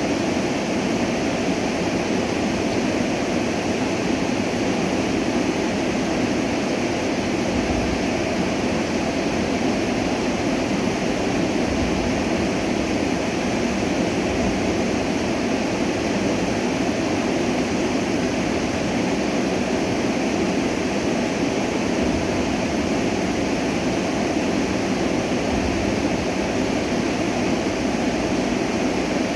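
Stream water flowing, a steady even rush of water with no change in level.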